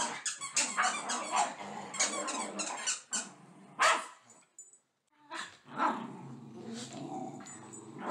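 Several miniature schnauzers barking and growling in rough play over stuffed toys. There is a quick run of barks, then a pause about halfway through, then growling with a few more barks.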